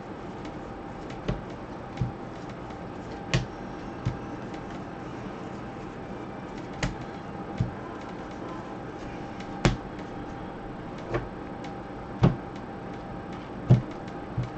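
Baseball trading cards being flipped through in a stack by gloved hands: about a dozen short, sharp card snaps and taps, irregularly spaced roughly a second apart, over a steady low background hum.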